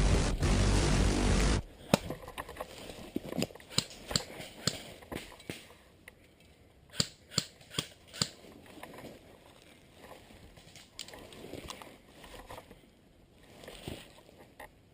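Music cuts off about a second and a half in, followed by a scattered series of sharp pops from airsoft guns firing, some in quick pairs or runs, with quiet between.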